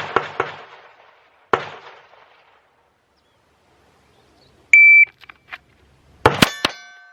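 A shot timer's start beep, then about a second and a half later two quick .22 LR shots from a Glock 44 pistol drawn from the holster, roughly a fifth of a second apart, leaving a ringing tone after them. Sharp, echoing bangs in the first second and a half are also gunfire.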